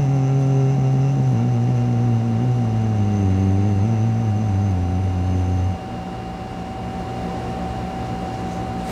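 A man humming one long, low 'mmm' with his mouth closed, the pitch sliding slightly lower, stopping about six seconds in. A faint steady electrical tone hums behind it throughout.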